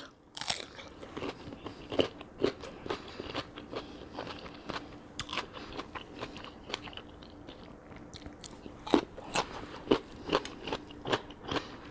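A person biting and chewing crunchy raw radish close to the microphone: irregular crisp crunches, a little louder a couple of seconds before the end.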